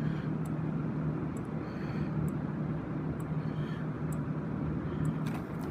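Space Age Electronics fire alarm strobe flashing, with a faint, high tick about once a second as it fires, over a steady low hum.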